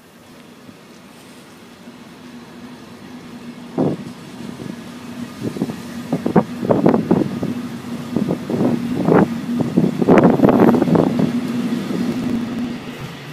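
Train of Halberstädter coaches hauled by a diesel locomotive pulling away from a station, with a steady hum under it that grows louder as it gathers speed. From about four seconds in, the wheels knock sharply over rail joints and points, the knocks coming thicker and louder toward the end.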